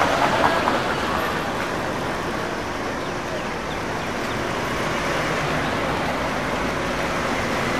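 Steady street traffic noise, with a car driving past close by.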